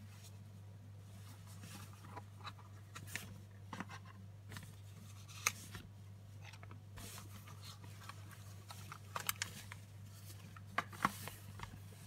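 Hands handling a cardboard gift box and the metal lighter insert inside it: scattered light taps, clicks and scrapes at irregular intervals, the sharpest about halfway through and again near the end, over a steady low hum.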